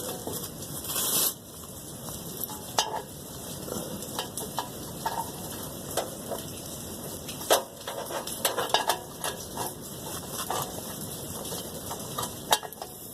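Hand tools clinking and scraping against metal while the exhaust joint and gasket are worked on and tightened: irregular sharp clinks over a steady hiss.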